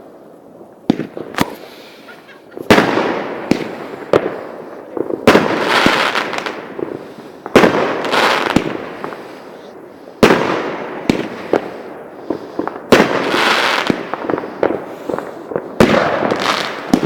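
New Year consumer fireworks going off: loud, sharp bangs every one to three seconds, each followed by a crackling, hissing tail.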